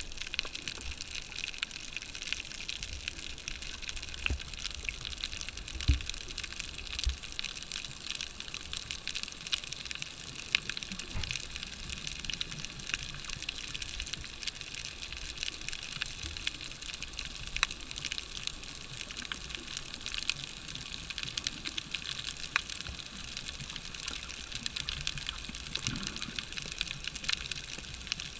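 Underwater ambience heard through an action camera's waterproof housing: a steady hiss of water with many scattered sharp clicks and a few low thumps, the strongest about six seconds in.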